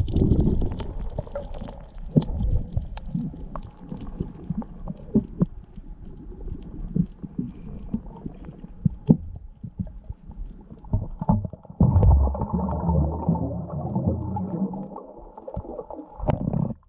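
Muffled underwater sound picked up by a camera in its waterproof housing: low rumbling of moving water with scattered sharp clicks and knocks, then a denser, louder rushing for the last few seconds before it cuts off.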